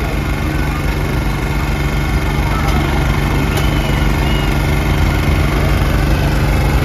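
A steady engine drone with a low hum and a faint, thin, steady high tone, plus a couple of faint clinks of a serving spoon against a steel tray.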